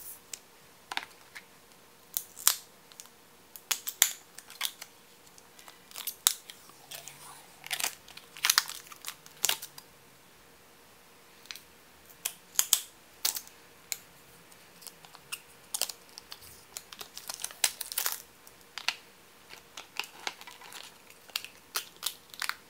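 Scattered sharp clicks, taps and light scraping of a clear plastic Spigen case being handled and snapped onto an iPhone 12 Pro Max, with a few quieter gaps.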